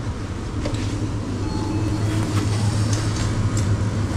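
A steady low hum, with light rustling and clicks as an insulated food-delivery bag is handled and opened.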